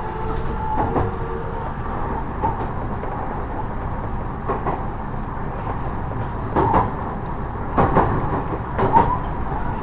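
Steady running rumble inside the leading car of a JR West 223 series electric train, heard from the cab. Its wheels clack sharply over rail joints and points a few times in the second half.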